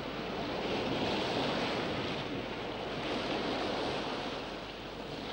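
Sea waves washing in, a steady rush of surf that swells and eases in slow surges.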